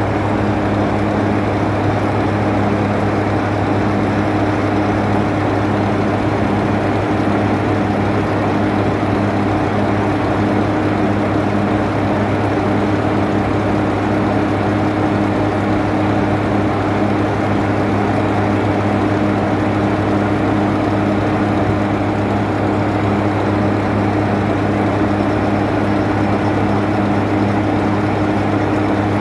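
Class 45 diesel-electric locomotive's Sulzer 12LDA28-B twin-bank diesel engine idling steadily, heard close alongside its engine-room grilles: an even, low drone that does not rise or fall.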